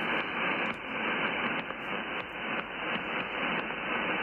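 Steady receiver hiss from an Elad FDM-DUO SDR transceiver, back on receive and tuned to an empty sideband channel. The hiss sounds thin, its top end cut off by the receive filter.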